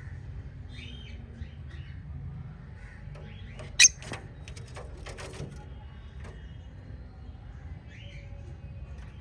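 Pet budgerigars chirping on and off, with one loud, sharp noise about four seconds in, over a steady low hum.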